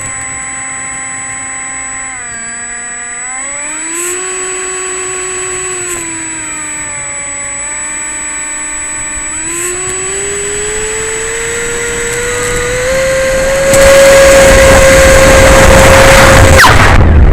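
Electric ducted fan of an RC F-86 Sabre jet whining, its pitch sliding up and down with the throttle. It then climbs to a high steady whine. A loud rushing noise comes in about two-thirds of the way through and cuts off suddenly near the end.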